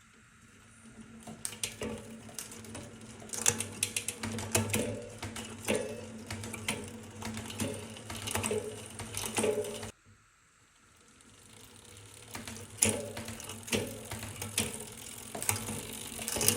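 12-speed bicycle chain running over the cassette and chainring as the drivetrain spins, a steady hum dotted with sharp clicks and rattles. It gets louder as it speeds up, cuts off abruptly about ten seconds in, then starts and builds up again.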